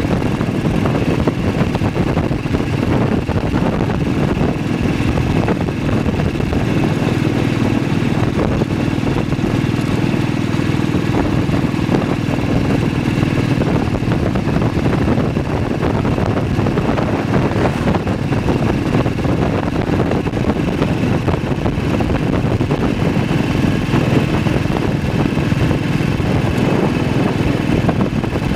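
BSA WM20 military motorcycle's single-cylinder side-valve engine running steadily at road speed, mixed with a steady rush of wind and wet-road noise.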